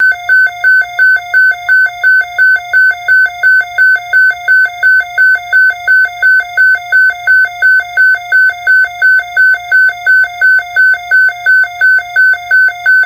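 Electronic emergency alert tone beeping steadily, about three short high beeps a second. It is the attention signal that opens a tornado watch alert.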